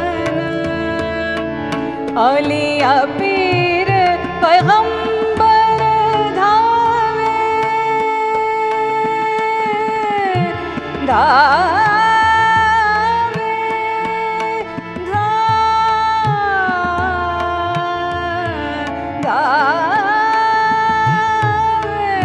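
A woman singing a slow song in Indian classical style with tabla accompaniment: long held notes, broken three times by quick wavering runs, over steady drum strokes.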